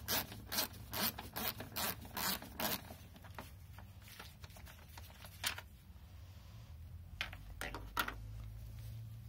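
Ratchet wrench working loose a headlight mounting bolt: short rasping strokes about three a second for the first three seconds, then a few scattered clicks and taps.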